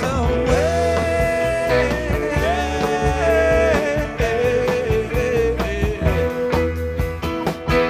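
Music: a song with a sliding lead melody over a steady bass line.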